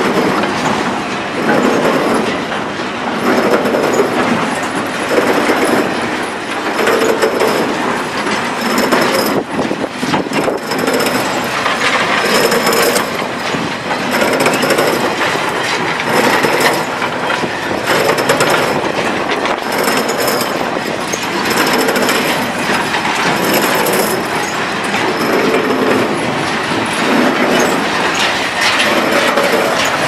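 New Holland 282 square baler running off a tractor's PTO, its mechanism clattering steadily in a repeating rhythm.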